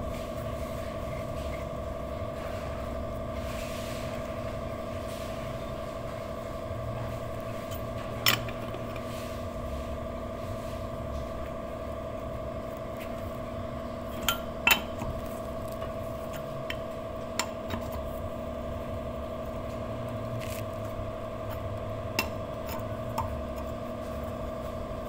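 A metal hand tool working at a car wheel gives a handful of sharp, scattered metallic clinks. Under them runs a steady hum made of a few fixed tones.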